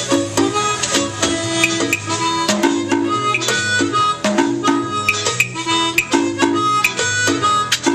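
Amplified Seydel Saxony harmonica playing a lively boogie-woogie melody and chords through a microphone, over steady percussion hits and a low bass line.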